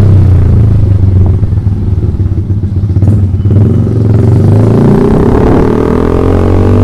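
A Yamaha MX King 150's single-cylinder engine running loud through an aftermarket ROB 1 exhaust. The revs drop in the first second or so and ease off around two to three seconds in, then climb steadily from about four seconds in to the end.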